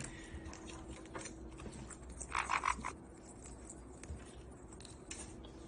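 A parrot gives a short, raspy croaking call of several quick pulses a little over two seconds in, among faint scattered clicks.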